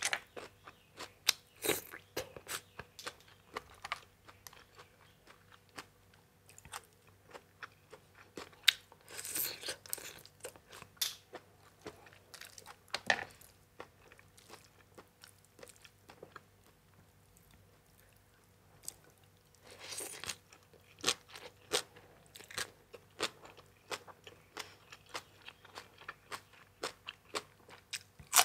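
A person eating, chewing and crunching crisp food in irregular bites. The crunching is thickest near the start and again from about twenty seconds in, with only sparse chewing between.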